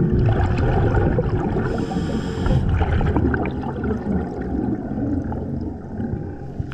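Scuba diver breathing through a regulator underwater: a short inhalation hiss about two seconds in, with long gurgling rushes of exhaled bubbles before and after it.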